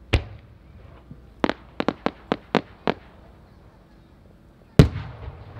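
Aerial firework shells: a sharp report at the start, then a quick run of about seven sharp pops over a second and a half. Near the end comes the loudest sound, a deep boom of a No. 5 (about 15 cm) shell bursting, which trails off over about a second.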